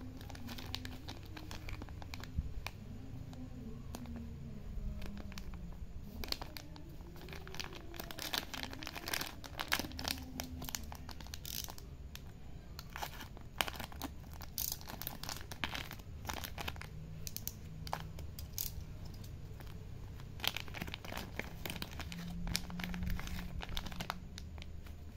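Thin clear plastic packet crinkling and crackling in the hands as it is cut open and pulled apart, a long run of sharp irregular crackles.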